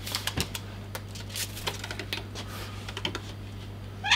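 Scattered light clicks and taps over a steady low electrical hum, with a brief high squeak at the very end.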